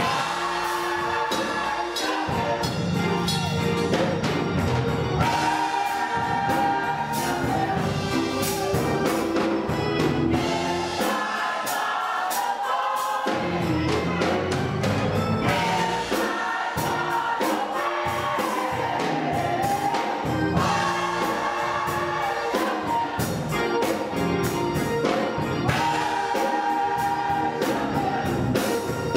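Church gospel choir singing together, with the low notes dropping away for a couple of seconds near the middle.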